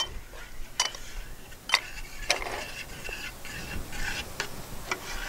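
Long metal spoon stirring sauce in a stainless-steel stockpot, clinking against the pot now and then: about six sharp, irregular clinks.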